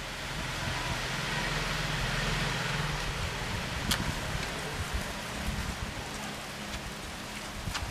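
Steady outdoor background noise: an even rushing hiss with a low hum under it, and a single light click about four seconds in.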